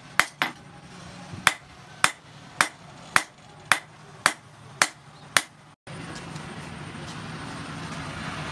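A hand hammer striking red-hot steel rebar on a steel post anvil: ten sharp strikes, roughly two a second. Near the end the hammering stops and a steady machine hum from a bench drill press takes over.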